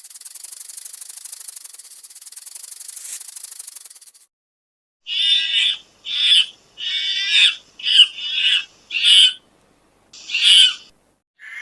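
A high, rapidly pulsing buzz for about four seconds, then a series of seven short, harsh animal calls.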